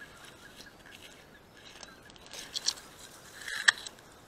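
Dry corn stalks and grass of a hunting blind rustling and crackling as they are brushed, in a few short bursts from about two seconds in, the sharpest near the end.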